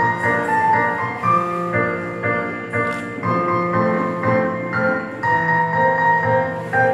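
Instrumental music led by a piano melody, the notes changing several times a second over a steady accompaniment.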